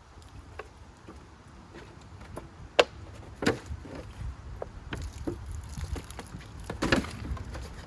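Irregular knocks, clicks and rustling of things being handled, with one sharp click about three seconds in and a few louder knocks near the end, over a low rumble.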